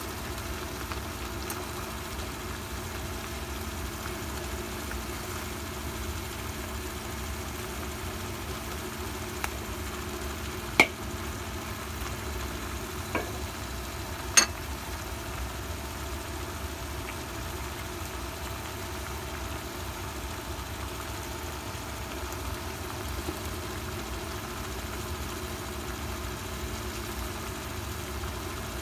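Steady mechanical hum with a low rumble under it. Two sharp clicks stand out, about eleven seconds in and again about three and a half seconds later.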